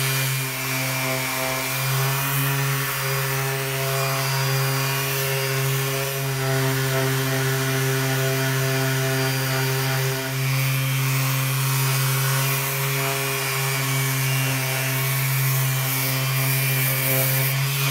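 Electric random orbit sander running steadily with its pad pressed on a steel hatch, sanding off rust and mill scale: a steady motor hum with a hiss above it.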